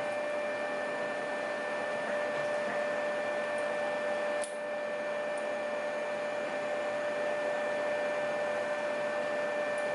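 Steady background hum with a constant tone, and a single faint click about four and a half seconds in.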